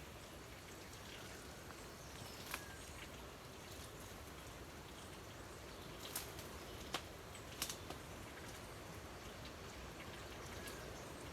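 Faint, steady outdoor background noise with a few sharp ticks scattered through it, the clearest about two and a half seconds in and around six to eight seconds in.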